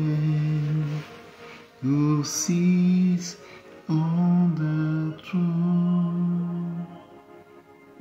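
A man singing a slow worship melody in long held notes, with short breaks between phrases.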